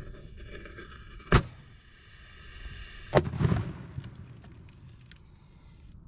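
Consumer firework canister shell exploding inside an HDPE mortar tube held in a wooden rack: a hiss, then two sharp bangs about two seconds apart, the second followed by a short low rumble and crackle. The blast splits the tube and the rack's wood.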